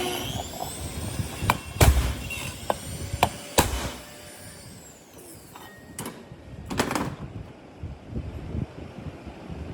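A few sharp knocks and clatters of parts and tools being handled, the loudest about two seconds in and again around three and a half seconds, followed by quieter scattered rustling and a couple of clicks.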